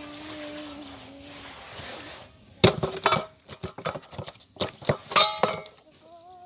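Cast net being handled over its catch: a faint steady hiss with a short held tone near the start, then, a couple of seconds in, a dense run of sharp clinks and knocks.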